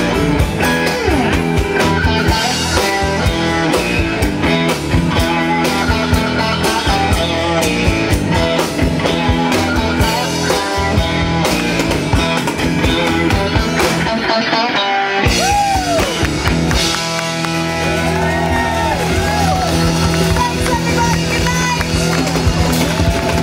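Live rock band playing amplified guitar over a drum kit and bass. The drums and bass drop out briefly about two-thirds of the way in while a guitar note bends, then the band carries on.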